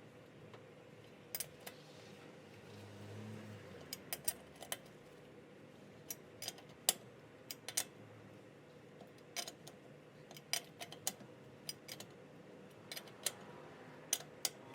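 Scattered metal clicks and clinks of a lug wrench working the lug nuts on a car wheel as they are tightened, irregular and fairly faint.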